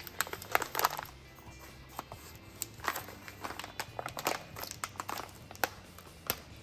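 A plastic bag of paydirt being handled and worked open: a scatter of short crinkles and clicks, over steady background music.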